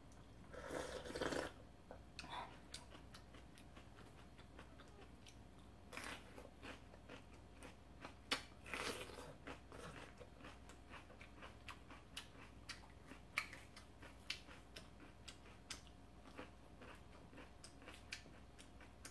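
Faint close-up eating sounds of someone chewing raw salmon sashimi: soft wet mouth sounds and scattered small clicks, with louder chewing bursts about a second in and again around nine seconds in.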